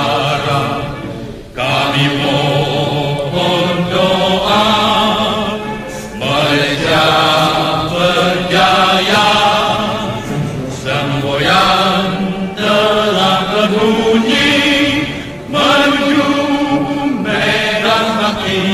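A group of voices sing a Malay patriotic song together in a chant-like style, phrase by phrase, with short breaks between phrases.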